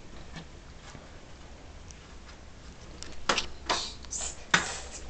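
Clicks and light knocks of a computer monitor's parts being handled while it is taken apart. A few faint ticks come first, then a quick run of sharper clicks about three to four and a half seconds in.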